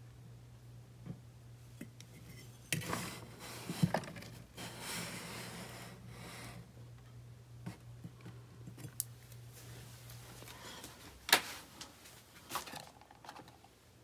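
Handling noise at a metal table lamp: light clicks, metallic rattles and rustling, with one sharp click late on the loudest. A low steady hum underneath stops near the end.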